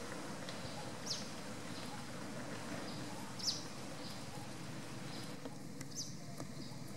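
Three short, high-pitched calls, each falling in pitch, about two and a half seconds apart, over a steady outdoor background hiss.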